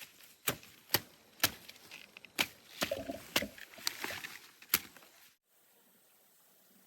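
A hand tool chopping in quick, regular strikes, about two a second. The strikes stop after about five seconds and the sound drops suddenly to faint background.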